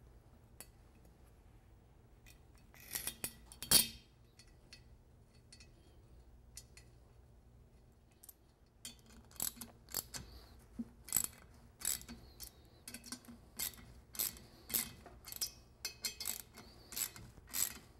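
Ratchet wrench clicking as two bolts are tightened into the threaded puller holes of a truck's rear brake drum to press it off the hub. A few metallic clinks come about three seconds in, then steady ratcheting strokes about twice a second from about nine seconds in.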